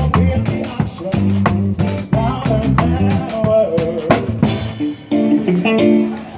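Live band playing an instrumental passage: electric guitar, bass guitar and drum kit, with regular drum and cymbal hits and a brief drop in level about five seconds in.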